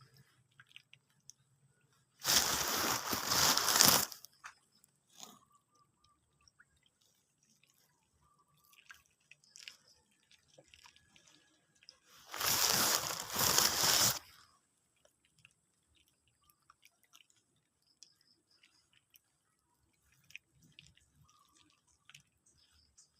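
Catfish feeding in a water-filled refrigerator-box tank: two loud bursts of splashing and rattling, each about two seconds long and about ten seconds apart, with faint clicks and drips in between.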